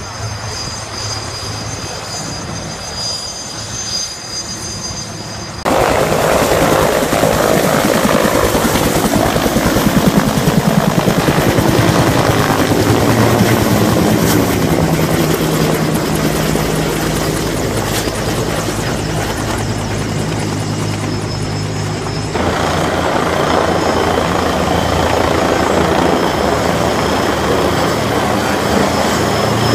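Firefighting helicopter running close by: the steady beat of the rotor blades over the turbine's whine and a low hum. The sound gets sharply louder about six seconds in and shifts again abruptly a little after twenty seconds.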